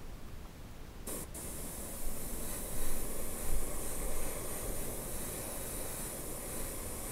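Airbrush spraying paint through a stencil onto masking tape. It starts with a short click about a second in, then hisses steadily, swelling louder a few times.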